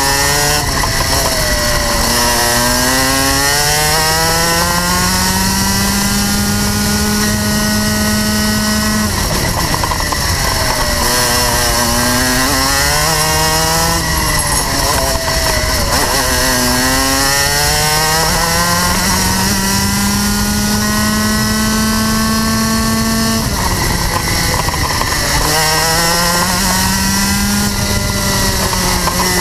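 Rotax Max 125cc single-cylinder two-stroke kart engine at racing speed, heard on board: the revs climb steadily along each straight, then drop sharply under braking for a corner and pick up again, several times over.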